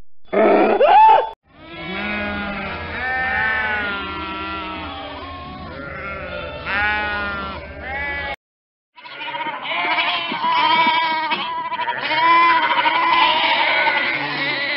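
A mule's bray ends in a short rising cry. Then sheep bleat over and over, several calls overlapping, for about seven seconds. After a brief silence, goats bleat repeatedly.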